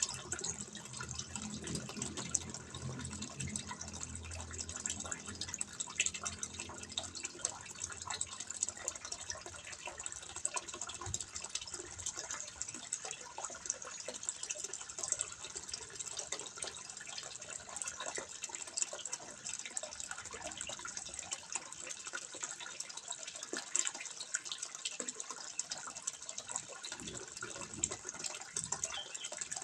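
Water trickling and splashing steadily into a fish pond, a continuous patter of small splashes. A low rumble sits underneath for the first several seconds, then fades away.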